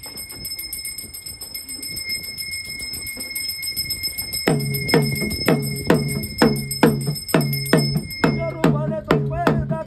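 Tembare, a double-headed hand drum, beaten in a steady beat of about two strokes a second that starts about halfway through. Each stroke gives a low, pitched boom.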